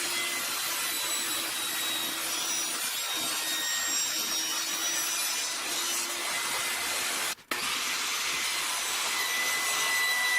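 Electric power tool running steadily with a rough, hissing grind while shaping a handle, cutting out for a split second about seven seconds in. A steady whine rises above it near the end as the tool begins to wind down.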